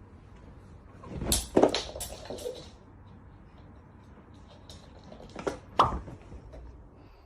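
Several knocks and thuds: a cluster about a second in, then two sharper knocks near the end.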